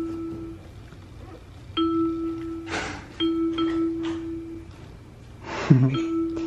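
Toy piano on a baby's activity mat, kicked by the baby's feet, sounding the same single clear note again and again, each tone held about a second and then cut off. Two short rustles come between the notes.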